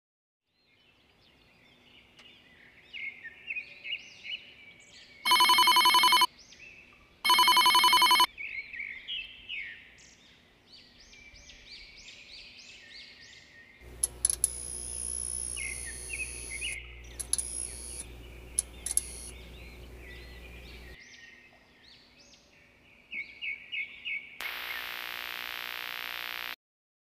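Sound-effect track: birds chirping throughout, broken by two loud electronic ringing tones about five and seven seconds in. A harsh hum and crackling static runs from about fourteen to twenty-one seconds, and a loud burst of static near the end goes with a glitch effect on the picture.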